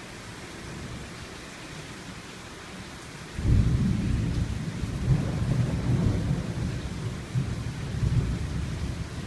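Rain falling steadily. About three seconds in, thunder breaks in suddenly with a long, low rumble that rolls on, swelling and fading.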